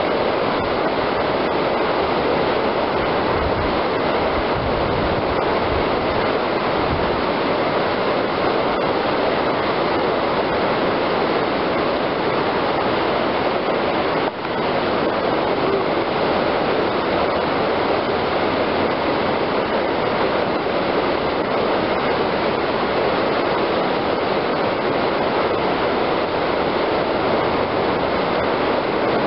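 Whitewater rapids rushing steadily, a dense even roar of churning water, briefly dropping about halfway through.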